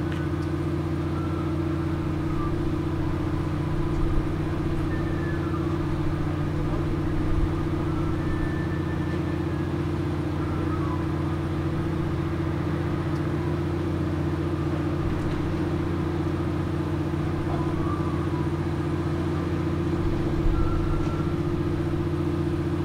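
Steady low engine drone running at a constant speed, its pitch unchanging throughout, with faint short high chirps now and then above it.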